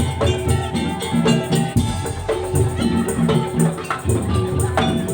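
Madurese tong-tong (daul) percussion ensemble playing an instrumental langgam: drums beating a steady rhythm under tuned percussion melody, with rattling shaken percussion.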